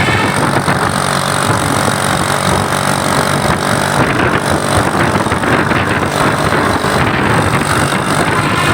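Coach bus's diesel engine running close by, a loud, steady noise.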